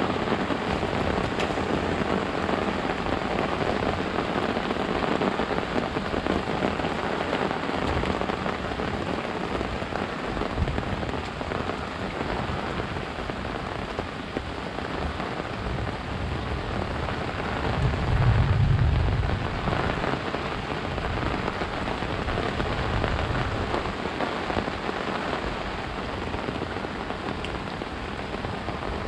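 Steady rain falling on grass and mud, an even hiss. A low rumble swells briefly about two-thirds of the way through.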